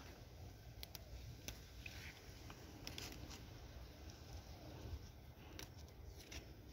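Faint rustling and scattered light clicks over a low, steady rumble, like plants being handled amid garden vines.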